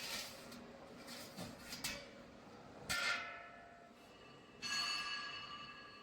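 Metal clanking in a workshop: a few light knocks, then two ringing clangs about three seconds in and near five seconds, each ringing on for about a second as it dies away.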